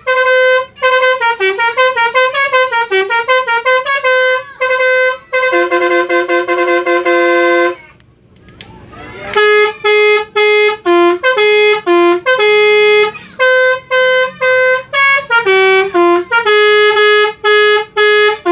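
Basuri V3 multi-tone 'telolet' bus horn playing its melody tunes. The first is a run of quick stepped notes that ends in a held two-note chord. After a short break about eight seconds in, another tune of short, choppy notes starts.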